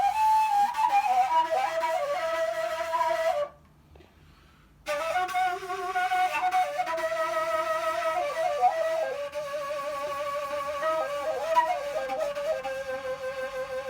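Kaval, the Turkish end-blown flute, playing a solo improvised melody with quick ornamented turns and wavering held notes. The melody breaks off for about a second and a half a few seconds in, then resumes.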